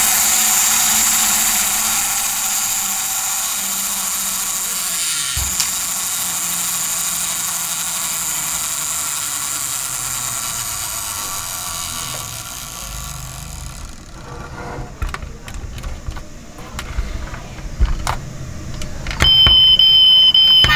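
A toy vehicle's electronic sound effect: an engine-like noise that slowly fades away over about fourteen seconds, followed by scattered clicks and a loud, steady, high beep that comes on near the end.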